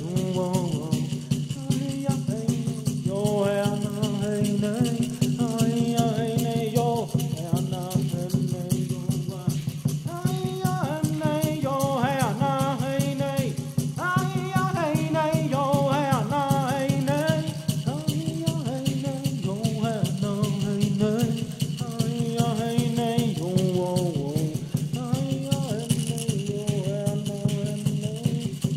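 Music: a voice chanting in gliding melodic phrases over a rapidly and continuously shaken peyote rattle, with a steady low drone underneath.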